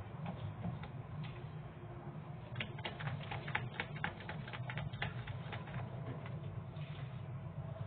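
A spatula stirring cake batter in a plastic bowl: a soft wet scraping with irregular small clicks and taps against the bowl, coming thick and fast in a run from about two and a half to five seconds in.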